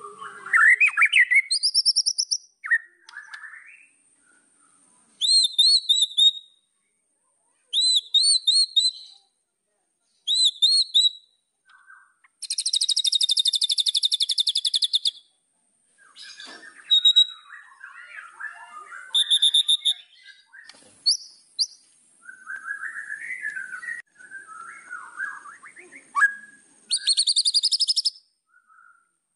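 White-rumped shama (murai batu) singing a varied song of clear whistled phrases with short pauses between them. Some notes come in quick repeated series, and two long, rapid, buzzy trills stand out, one about halfway through and one near the end.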